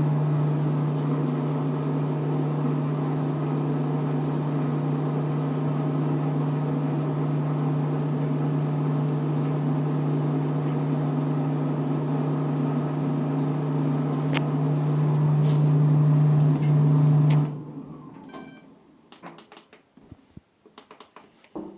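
Maytag clothes dryer running on high heat with a steady loud hum and rumble from worn drum support rollers. The running stops suddenly about three-quarters of the way through, followed by a few faint clicks and a light knock.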